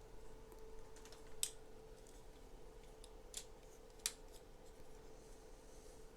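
Plastic Lego Technic parts being handled and snapped together: a few sharp, scattered clicks, with a faint steady hum behind them.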